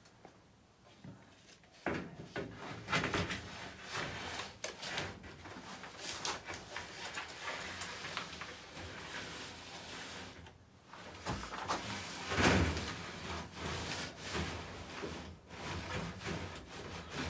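A droppings tray lined with newspaper and sawdust being slid into the slot under a chick brooder and worked into place: scraping and rubbing with crinkling paper and small knocks. It starts about two seconds in, and the loudest scrape comes about two thirds of the way through.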